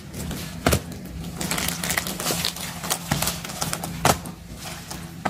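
Plastic mailer bag crinkling and rustling under hands, with a few sharp taps or clicks spread through it.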